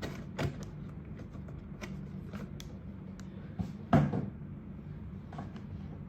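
A cardboard Lego box being handled: scattered light clicks and rustles, with one louder thump about four seconds in.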